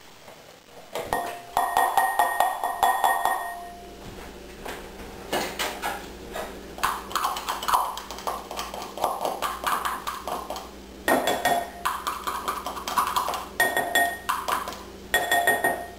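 A spatula scraping and clicking against a measuring cup and a glass mixing bowl. Twice the bowl rings with a steady high tone for a few seconds, once near the start and again in the last few seconds.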